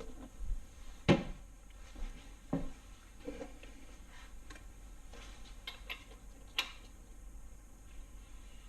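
Irregular metal clinks and knocks from engine parts and tools being handled during assembly, with the loudest knock about a second in.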